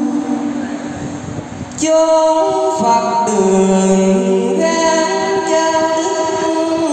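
A man's voice chanting Hòa Hảo Buddhist verse in a slow sung recitation over a microphone, holding long notes. It is softer for the first couple of seconds, then a loud new phrase begins.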